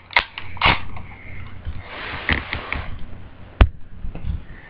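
Clicks and rustling from handling a small airsoft pistol, then one sharp, loud click about three and a half seconds in.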